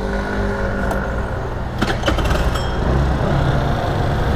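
Motor scooter engine running steadily amid street traffic, with a heavier engine note coming up close alongside near the end. A few sharp clicks about two seconds in.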